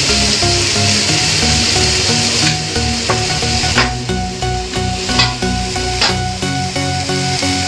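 Marinated chicken pieces sizzling in a hot nonstick grill pan, with a few sharp clicks of a spoon against the pan about three to six seconds in. Background music plays underneath.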